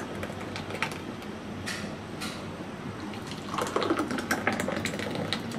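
Thick blended carrot-and-milk juice poured from a blender jar into a glass tumbler, a steady glugging, splashing pour. It is poured into a second glass in turn, and the pouring grows louder about three and a half seconds in.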